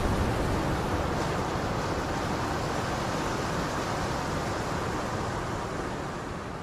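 A steady rushing noise, like wind or surf, with no tune or beat in it, slowly fading out toward the end as the track ends.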